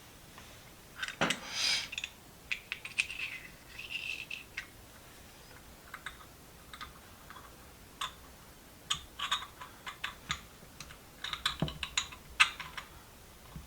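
Small steel parts of an SK ratchet clicking and clinking as it is handled and reassembled after oiling, in irregular light taps with a couple of brief ringing clinks.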